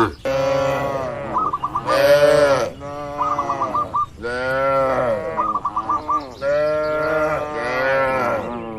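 Cattle mooing, several long calls one after another with barely a pause between them. A short call of about four quick high notes repeats about every two seconds over the moos.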